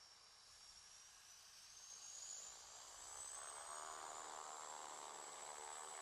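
Faint sound of a twin-engine turboprop plane running on skis across snow: a thin high engine whine rising slowly in pitch, with a buzzing propeller drone coming in and growing louder after about two and a half seconds.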